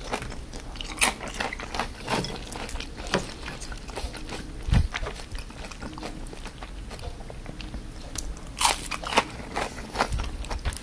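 Crispy deep-fried opo squash fritters being bitten and chewed: irregular crunches, with a few sharper ones near the middle and near the end.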